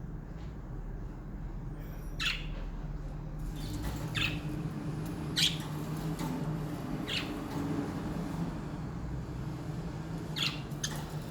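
Pet budgerigars giving short, sharp squawking calls, about five spaced a second or more apart, over a steady low hum.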